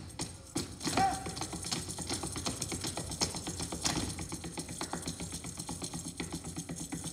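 Rapid tap-dance footwork: a fast, even patter of shoe taps on the stage floor, with a louder hit about a second in and a few stronger accents later.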